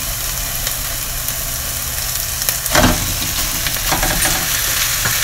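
Sliced onions sizzling in oil in a nonstick frying pan over moderate heat as they soften and begin to brown. A few short knocks and scrapes of a spoon in the pan, louder in the second half, as slices of raw pork loin are tipped in with the onions.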